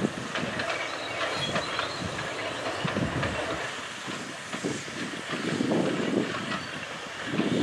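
SNCF 140 C class 2-8-0 steam locomotive hauling a train of goods wagons, its exhaust beats and the wagons clattering over the rail joints in an uneven rumble.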